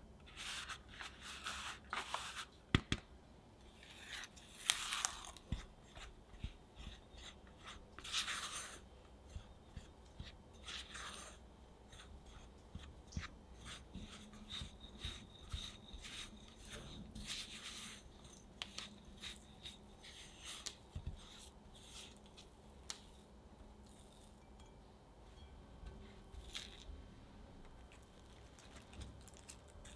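Silicone spatula scraping and cutting through flour and soft butter in a glass bowl, mixing cookie dough in short irregular strokes, busier for the first ten seconds or so and softer after.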